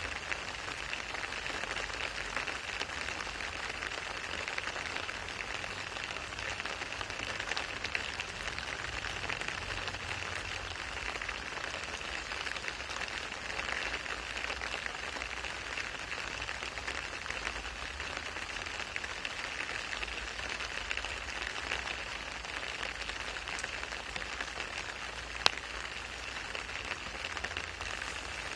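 Steady rain falling on wet asphalt pavement: a continuous even patter and hiss of drops. One sharp click stands out near the end.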